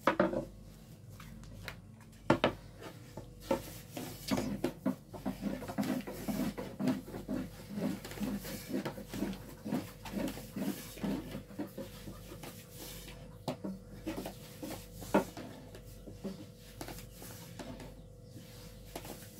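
Wooden rolling pins knocking and rolling on wooden dough boards as flatbread dough is rolled out: scattered sharp knocks, with a busier stretch of quick taps and rubbing in the middle.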